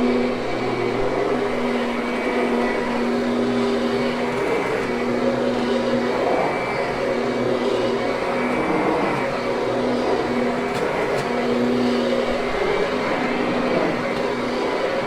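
Kirby upright vacuum cleaner running steadily over carpet, a continuous motor drone whose low hum keeps fading in and out.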